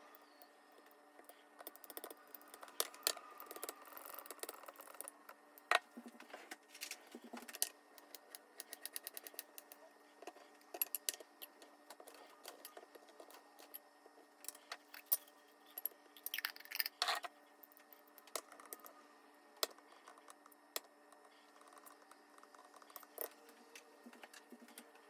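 Household handling sounds: irregular small clicks, taps and light knocks of objects being picked up and set down, with short bits of rustling and a cluster of louder knocks about two-thirds of the way in, over a faint steady hum.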